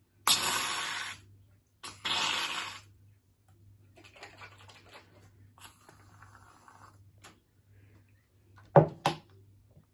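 Aerosol can of shaving foam spraying out in two hissing bursts, about a second each, in the first three seconds. Faint rustling follows, then two sharp knocks near the end.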